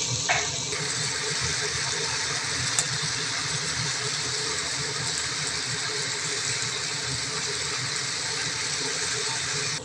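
Chicken strips, capsicum and corn sizzling steadily in a frying pan.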